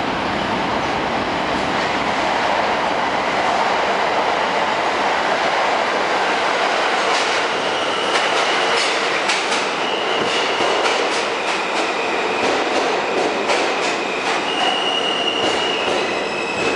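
R160A-2 subway train pulling into an underground station, a steady loud rumble of wheels on rail. From about seven seconds in come rhythmic clicks of wheels over rail joints, then a thin high squeal as the cars pass.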